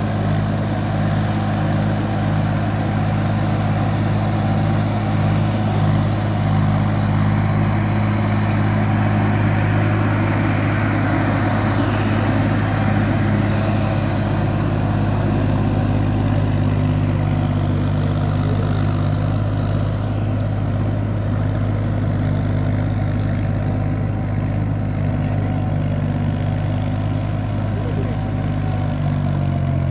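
Farm tractor's diesel engine running steadily under load while it ploughs a flooded paddy field, with mud and water churning under its wheels as it passes close. The engine's pitch shifts near the end.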